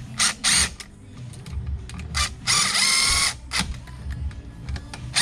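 DeWalt cordless drill-driver whining in several short bursts, the longest about a second in the middle, as it drives small screws into a plastic electrical box.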